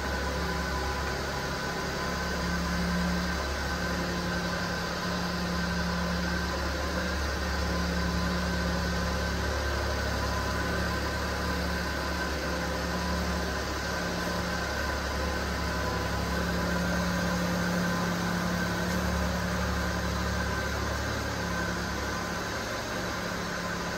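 Small three-cylinder engine of a 1997 Suzuki Carry DD51T kei truck idling steadily.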